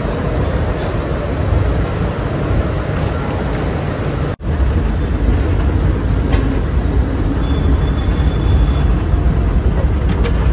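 Passenger train pulling out of a station, heard at an open coach doorway: a steady rumble of wheels and running gear with a thin high whine over it. The sound cuts out for an instant about four seconds in.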